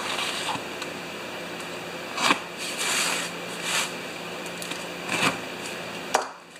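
Taped cardboard box being slit open along its edges: about five short scraping, rasping strokes of the tool through tape and cardboard, the sharpest a couple of seconds in, with the box handled on the bench.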